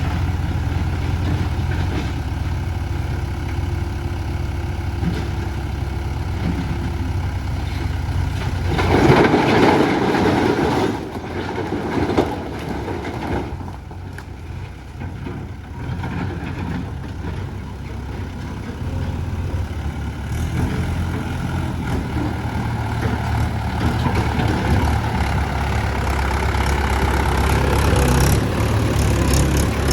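Heavy diesel machine engine running steadily, with a loud surge of noise about nine seconds in. It drops to a quieter run for several seconds, then builds up again over the last ten seconds.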